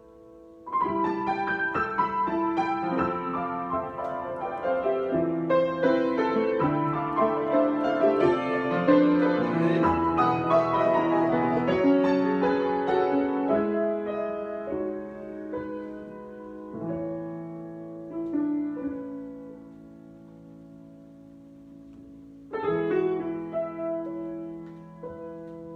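Solo piano improvisation: notes and chords begin about a second in and run densely for the first half, then thin out into a chord left to ring, with a fresh chord struck near the end.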